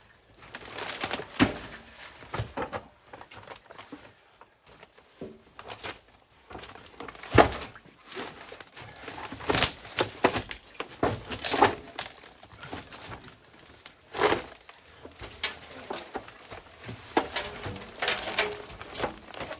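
Irregular knocks, clicks and plastic-and-wood cracking sounds of parts being handled and pulled apart during disassembly of a water system, with a few sharper loud knocks scattered through.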